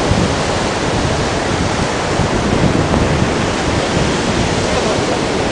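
Wind buffeting the microphone over a steady rush of sea and surf.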